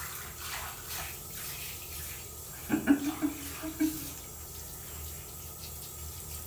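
Handheld shower head spraying water onto a cat's wet fur, with a steady hiss of running water. About three seconds in, a few short, low voice-like sounds.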